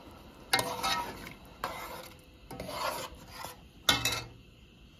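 Metal spoon scraping around the inside of an aluminium cooking pot while stirring a thick fish stew, in four strokes, the first and last loudest.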